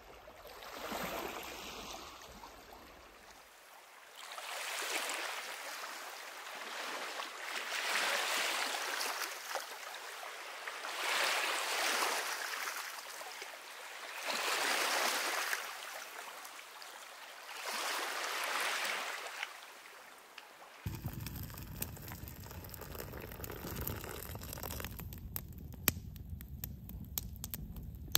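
Small Lake Superior waves lapping on a sand and stone beach, washing in six times about every three to four seconds. About twenty seconds in, this gives way to a wood campfire crackling in a metal fire ring: a steady low rumble with sharp pops that come thicker near the end.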